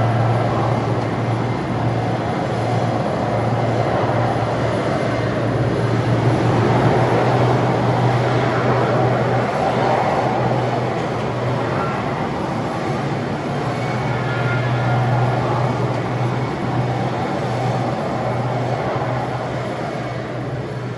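Aircraft engines running on an airport tarmac: a steady engine rush over a low, constant hum, swelling and easing slightly, then starting to fade near the end.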